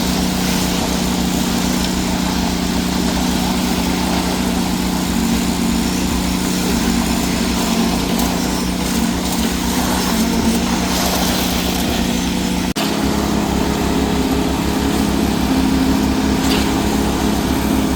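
Heavy diesel engine of a concrete pump or mixer truck running steadily. About 13 seconds in the sound drops out for an instant and comes back in a slightly different tone.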